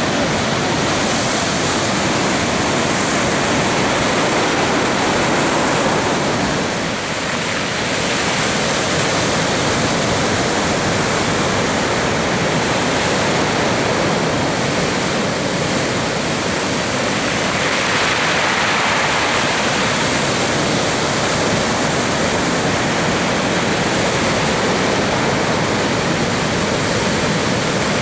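Steady rush of breaking ocean surf and whitewater from a large swell, rising and easing slightly as the sets come through.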